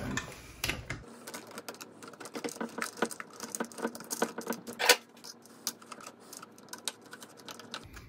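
Irregular small clicks and taps of plastic and metal as a power cord's strain relief and wires are worked into the electrical opening of a garbage disposal's metal housing, with one sharper knock about five seconds in.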